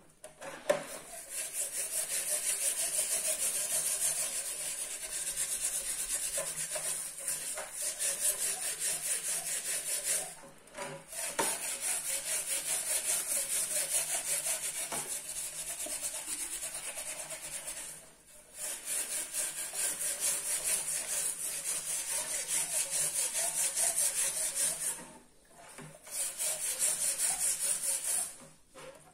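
Fast, repeated rubbing or scraping strokes, kept up in long bouts with short breaks about 10, 18, 25 and 28 seconds in.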